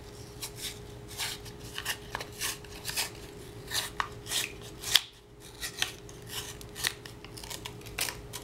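Cardboard casing of a model rocket engine being peeled and torn apart by hand: a string of short papery rasps, about three a second, with one sharper snap about five seconds in.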